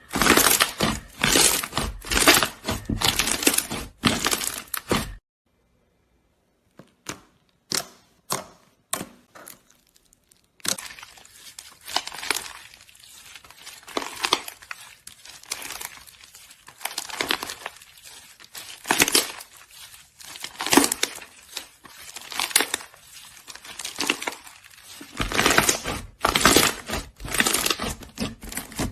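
Slime being squeezed and pressed by hand, making crackling, crunching sounds. Dense crackling for about five seconds, a quiet stretch with a few scattered clicks, then repeated swells of crackling every second or two to the end.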